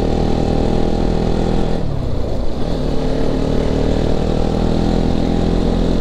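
Motorcycle engine running under way, heard from the rider's seat; its pitch drops briefly about two seconds in, then holds steady again.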